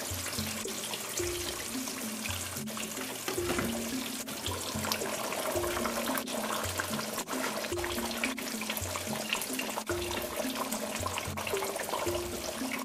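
Background music with a repeating melody over liquid sounds from the stove: boiling water being poured into a wok of curry at the start, then the curry simmering.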